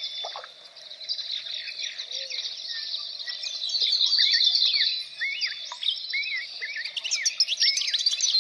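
Many songbirds chirping and singing together, a dense chorus of short quick notes over a steady background hiss.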